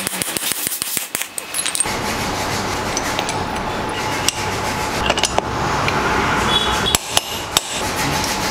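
Hammer striking a steel mandrel to drive a wheel bearing into the hub of a belt-drive rear pulley: sharp metal knocks in quick succession for the first two seconds, then a few scattered knocks over a steady background noise.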